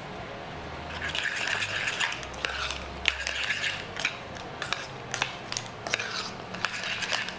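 Utensils stirring fregola pasta with mussels in a small stainless-steel saucepan: a wet, sticky mixing sound with repeated scrapes and clinks against the pan.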